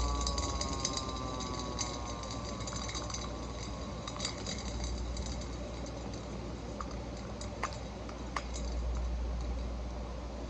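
Hand crank siren spinning down, its falling wail fading out over the first couple of seconds. Then a steady low hum, with two sharp clicks later on.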